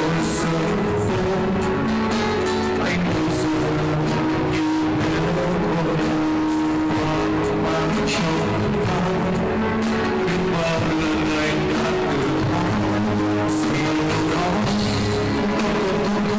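Live band playing a song, a male vocalist singing over held notes, with cymbal strikes every few seconds.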